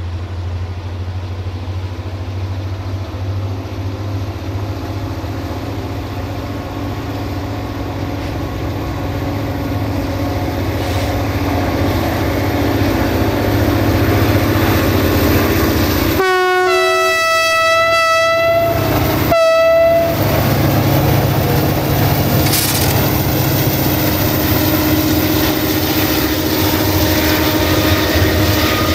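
Locomotive-hauled passenger train approaching and passing, its engine growing steadily louder. About halfway through the locomotive sounds a long multi-tone horn blast that steps in pitch, then a short second blast. The coaches then roll past with wheels clattering over rail joints.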